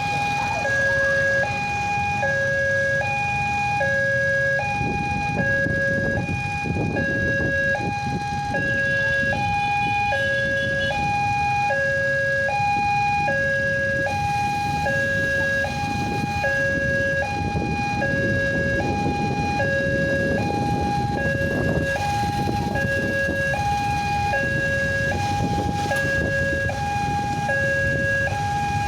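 Electronic two-tone railroad level-crossing alarm, a newly fitted siren, sounding continuously and alternating evenly between a high and a low tone about every two-thirds of a second: the warning that a train is approaching. A low rumble runs beneath it.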